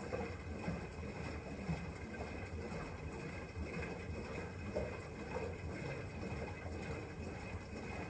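Front-loading washing machine mid-wash: the drum turns and the wash water sloshes and splashes inside it, over a steady low hum.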